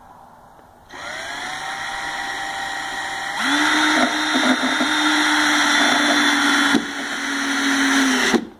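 Power drill motor spinning up and running steadily in wood. About three seconds in it changes pitch and gets louder, then it stops near the end.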